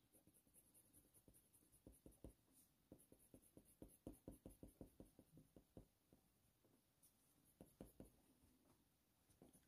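Faint, quick strokes of a Faber-Castell Polychromos coloured pencil on hot-press watercolour paper, drawn with light pressure: a run of short scratchy strokes from about two to six seconds in, and a few more near eight seconds.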